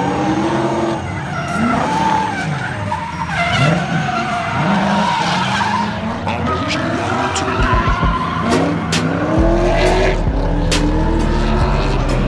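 Drift cars sliding sideways, their engines revving up and down over and over while the tyres squeal and skid across the asphalt. A few sharp pops cut through in the second half.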